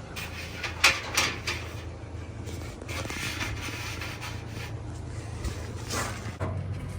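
A few sharp clicks and knocks of metal parts and tools being handled on a dryer motor assembly, a cluster about a second in and another near the end, over a steady low hum.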